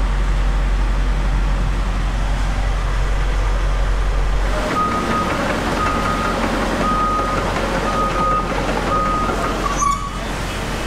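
Steady low hum of a Caterpillar 320E excavator's diesel engine heard from inside its cab. About four and a half seconds in, the sound changes to the machinery heard in the open, with a backup alarm beeping about once a second over the engine running.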